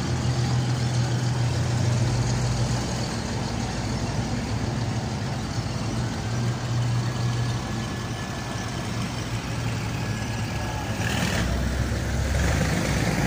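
Heavy vintage military truck engines running steadily as the trucks roll past slowly, with a low hum throughout. Near the end there is a brief louder burst.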